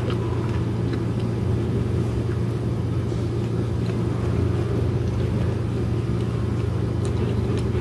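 Steady low rumbling hum in the background, with a few faint light clicks.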